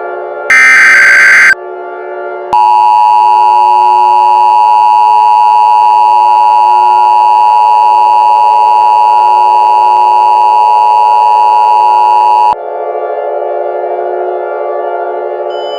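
Emergency Alert System alert opening. It starts with a one-second burst of screeching digital header tones, followed by the EAS two-tone attention signal: a harsh, steady dual tone held for about ten seconds that cuts off suddenly. A low, steady synthesized drone runs underneath and carries on after the tone stops.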